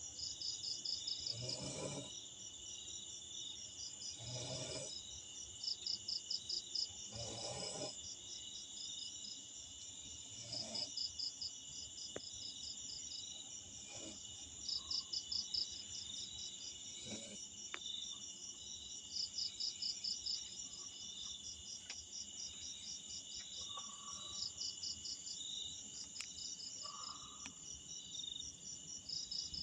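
A person snoring in sleep, one slow snore about every three seconds, the first few stronger and the later ones fainter. Behind it a steady chorus of insects, with loud pulsed chirping trills every few seconds.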